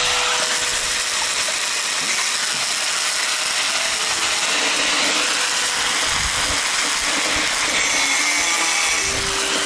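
Semi-automatic wire-feed welder arc crackling steadily as a bead is run along the joint of thin-walled square steel tubing, starting just after the beginning.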